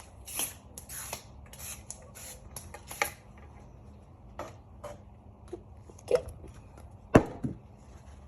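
Short hissing strokes of glass cleaner being sprayed and wiped over a model airplane, several in quick succession and then sparser, with a sharp knock about seven seconds in.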